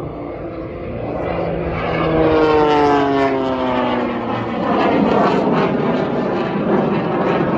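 Turbine-powered aerobatic biplane flying overhead. Its whine falls steadily in pitch from about two seconds in as it passes, then gives way to a steady rushing engine noise.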